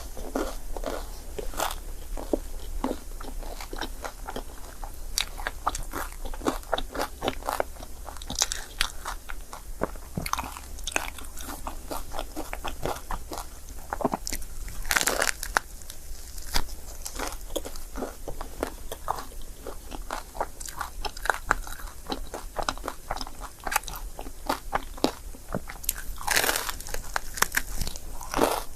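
Close-miked eating of a crepe: bites and chewing, a dense run of small wet clicks and crackles with a few louder bite bursts about halfway and near the end.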